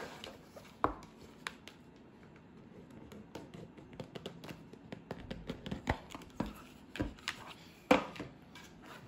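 Hands handling a cardboard oracle-card box: a few sharp taps and knocks as it is set down on and picked up from a wooden table, with soft rubbing and scraping as the outer sleeve slides off the box.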